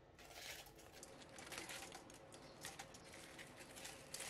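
Faint crackling and irregular light ticks as hot, freshly deep-fried battered fish fillets are slid from a wire strainer onto a wire cooling rack.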